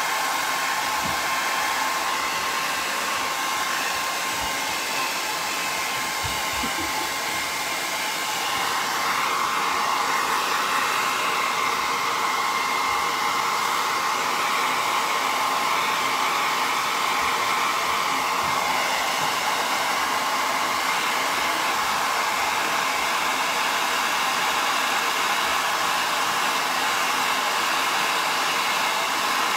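Hand-held hair dryer blowing steadily, with a steady whine from its motor, drying wet glaze on a painted ceramic piece. It grows slightly louder about eight seconds in.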